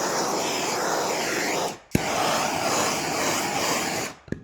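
Heat gun blowing hot air onto an aluminium door panel, heating it before a dent-pulling tab is glued on. The steady blowing cuts out about 1.8 s in, restarts with a switch click just after, and switches off with a click near the end.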